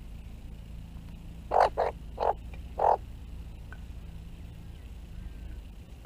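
Four short, harsh calls from an Australian magpie in quick succession, starting about a second and a half in, over a steady low outdoor rumble.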